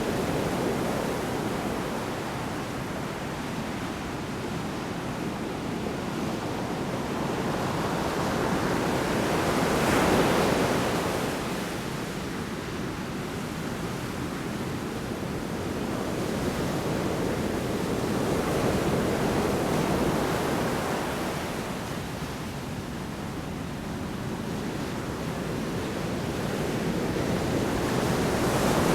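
Large storm waves breaking on the shore: a continuous rush of surf that swells and eases every nine or ten seconds. The strongest crash comes about ten seconds in.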